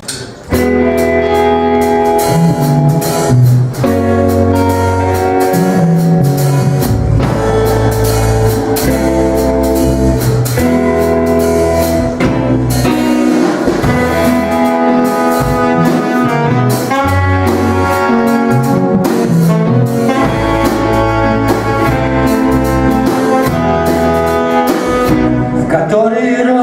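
A rock band playing an instrumental introduction live, with a steady drumbeat and a stepping bass line under held chords. The band comes in about half a second in.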